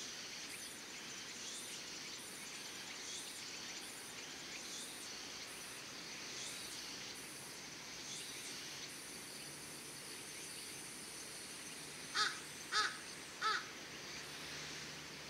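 A crow cawing three times in quick succession about twelve seconds in, over a steady background of insects chirping in an even rhythm.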